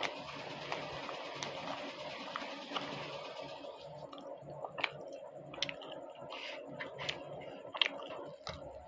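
A person eating luchi with cholar dal: chewing with soft, wet mouth clicks and squelches, scattered and more frequent in the second half.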